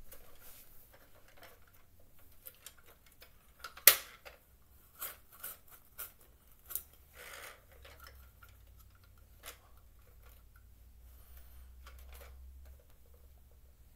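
Hard plastic clicks and knocks from a Bruder toy excavator being handled and its arm moved, coming one at a time with gaps between them; one sharper knock about four seconds in.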